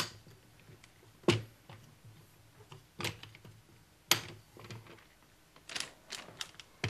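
Video tripod's leg clips and legs clicking and knocking as the legs are unclipped and spread into position: a string of separate sharp clicks and knocks, a second or so apart.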